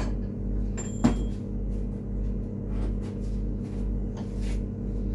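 Metal clinks and knocks of cutlery being handled and clamped in a steel bench vise, the sharpest clink about a second in, over a steady low hum.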